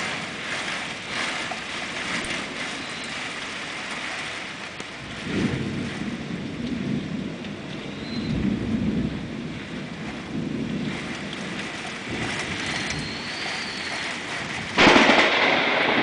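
Heavy thunderstorm rain pattering steadily on a window, with a roll of thunder rumbling low from about five seconds in for several seconds. Near the end the noise jumps suddenly much louder and stays loud.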